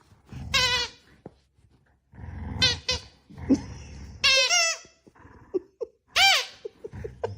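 A dog giving four short, high, wavering vocal calls, a few seconds apart.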